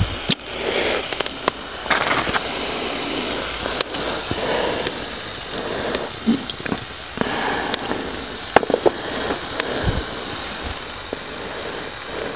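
Wood campfire crackling, with many sharp irregular pops over a steady hiss and some rustling.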